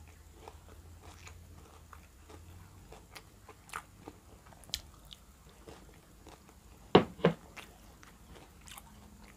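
Close-miked eating of fried pyaji fritters dipped in tomato achar: scattered small crunches and chewing, with two sharp, loud crunching bites about seven seconds in.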